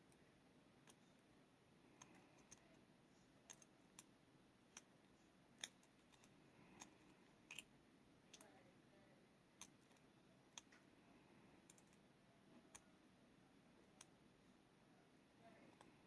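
Faint, irregular small clicks of a lock pick and tension wrench working the pin stacks of a five-pin Euro cylinder lock, with one louder click about five and a half seconds in.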